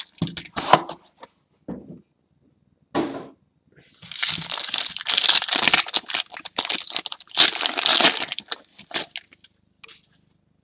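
Trading card box and its packaging being torn and pulled open by hand: a few sharp clicks and cracks, then several seconds of dense crinkling and tearing as the cards are taken out.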